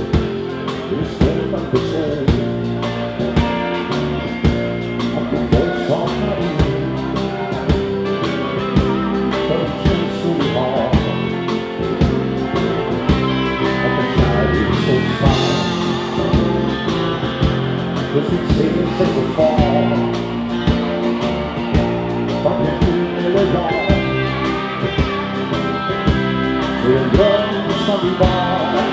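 Dansband music with electric guitar, drums keeping a steady beat, and singing.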